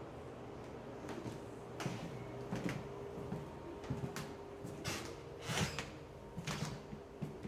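Footsteps on an old hardwood floor, about one step every three quarters of a second, each with a sharp click or knock, over a faint steady hum.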